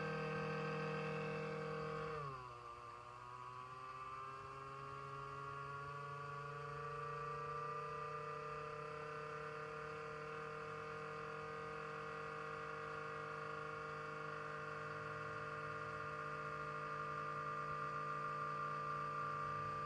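Desktop computer cooling fan running with an abnormal droning hum made of several steady tones. About two seconds in, the pitch drops sharply, then climbs slowly back over several seconds and holds steady. The owner suspects a deteriorating fan.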